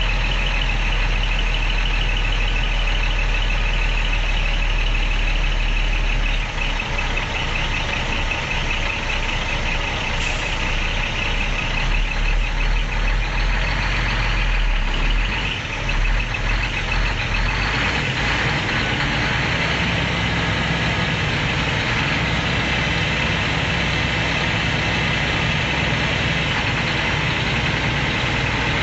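Scania R-series 480 hp truck's six-cylinder diesel engine idling steadily at close range; about two-thirds of the way through its note shifts, with a new steady low hum setting in, as the truck begins to move slowly.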